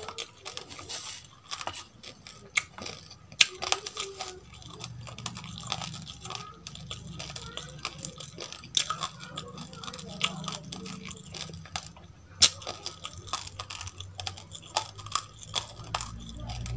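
Close-up crunching of a mouthful of dry roasted rice being chewed, a run of sharp, irregular crackles.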